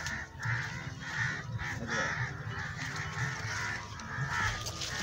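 Crows cawing over and over, a quick string of harsh calls about two a second.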